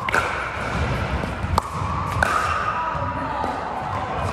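Pickleball paddles hitting a plastic pickleball during a rally: three sharp pops, one at the very start, one about a second and a half in and one just after two seconds, ringing in a large indoor gym.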